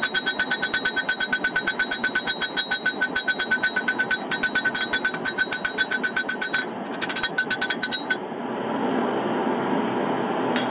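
Rapid, evenly paced hand-hammer blows on a red-hot katana blade on a steel anvil as its bevels are forged, each blow ringing. The blows pause briefly, a few more come, then they stop about eight seconds in, leaving a steady background noise.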